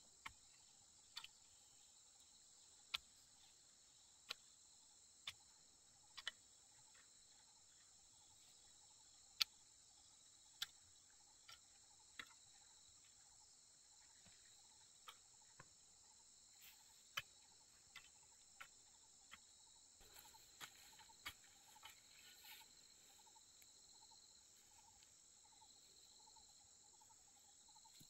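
Faint, steady, high-pitched chorus of crickets, with scattered sharp clicks about every second or two; the loudest click comes about nine seconds in.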